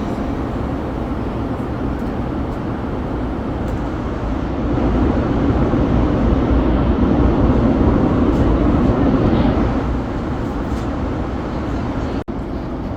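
Steady rumble of an airliner cabin, from the jet engines and airflow. It swells for several seconds midway, then eases back, with a momentary break near the end.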